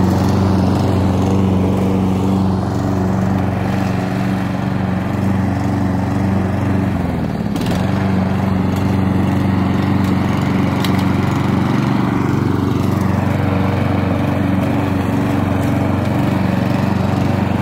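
Lawn mower engine running steadily while mowing grass; its speed sags briefly about halfway through, then picks back up.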